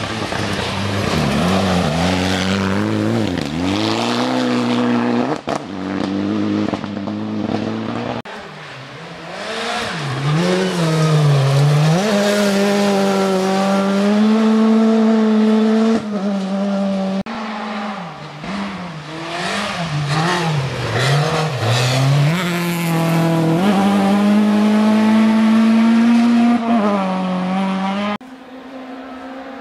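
Rally car engines driven hard on a gravel stage: high revs that climb, drop with gear changes and throttle lifts through the bends, then climb again, over the hiss of tyres on gravel. The sound cuts off suddenly near the end.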